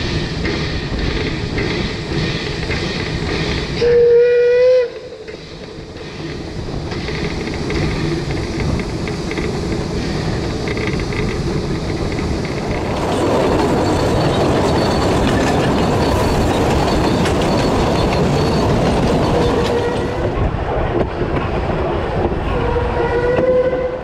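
Narrow-gauge steam train running with steady rolling and running noise. Its steam whistle sounds a short loud blast about four seconds in and a longer one near the end.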